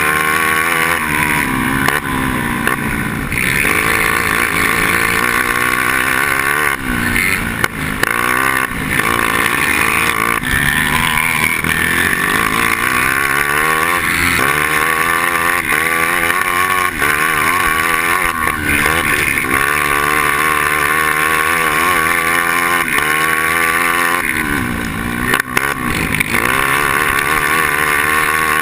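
Two-stroke engine of a grass-track racing kart at full race pace, heard onboard, its revs climbing and dropping over and over as it accelerates and lifts off through the corners.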